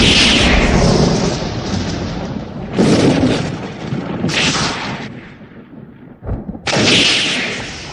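Thunder: sharp cracks, each followed by a rolling rumble that fades. One crack sounds at the start, others come about three and four and a half seconds in, and a last loud one comes near seven seconds, then dies away.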